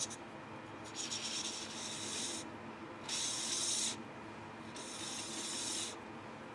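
Marker tip rubbing on an aluminium workpiece turning in a mini metal lathe, in four scratchy strokes of about a second each, over the faint steady hum of the running lathe.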